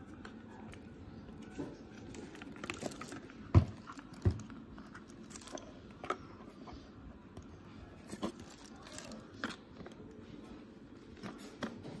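Handling noise from the plastic parts of a Bolde handheld vacuum cleaner and its cardboard packaging: scattered light clicks and rustles, with two sharper knocks about three and a half and four seconds in.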